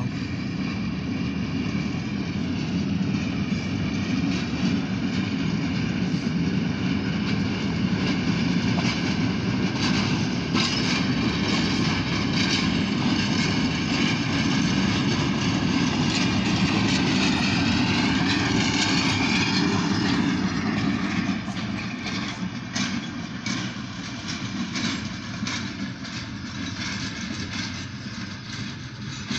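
Diesel switcher locomotive and freight cars rolling slowly past: steady engine and wheel rumble with a high wavering squeal over it, loudest as the locomotive goes by in the middle, then fading with a run of clicks as the cars roll over the rail joints.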